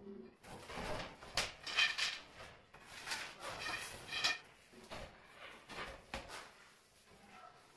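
Hand scraping and rubbing on glazed wall tiles and the edge of a marble slab, cleaning away mortar: a quick series of irregular scrapes, some of them squeaky, loudest in the first half and lighter afterwards.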